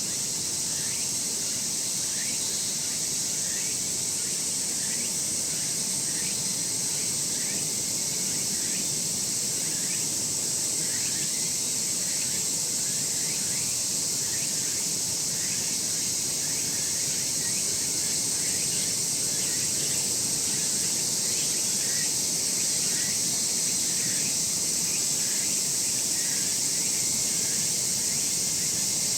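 Summer insect chorus, a steady high-pitched shrill, with a shorter chirp repeating about once or twice a second beneath it.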